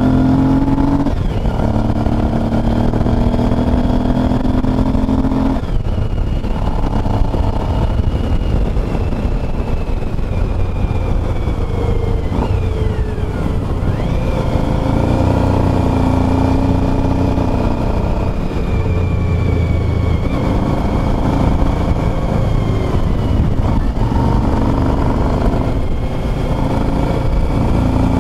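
Motorcycle engine running under way with wind and road noise, its note shifting up and down several times as the speed changes.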